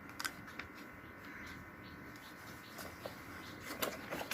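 Faint room tone with a few small scattered clicks and ticks, a cluster of them about four seconds in.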